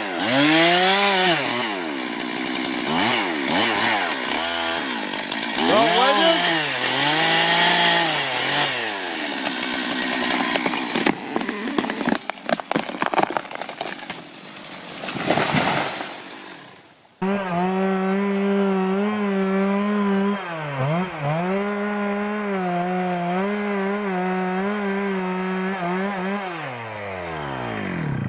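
Two-stroke chainsaw engine revved up and down repeatedly, its pitch rising and falling again and again. After an abrupt cut, a chainsaw runs at steady full throttle, sawing, dips once briefly, then slows down near the end.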